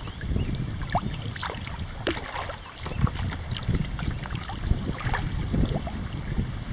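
River water splashing and dripping close around a kayak in many small, irregular plinks, over a steady low rumble of wind on the microphone.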